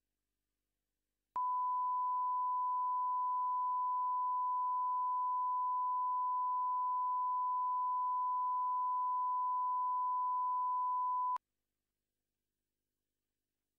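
A steady 1 kHz reference test tone, the line-up tone that goes with colour bars at the head of a video master. It sounds as one unchanging pitch for about ten seconds, starting abruptly about a second and a half in and cutting off suddenly.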